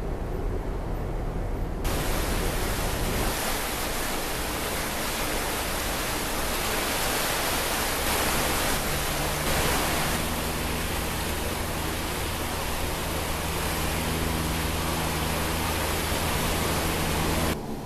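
Steady rushing noise on the deck of a moving cruise ship, cutting in abruptly about two seconds in after a low rumble, with the ship's low engine drone humming underneath from about halfway through.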